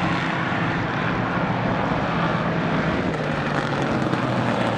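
Street stock race car engines running steadily on the oval track.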